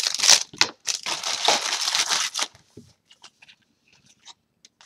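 Foil booster-pack wrapper crinkling and tearing open for about two and a half seconds, then a few faint clicks of trading cards being handled.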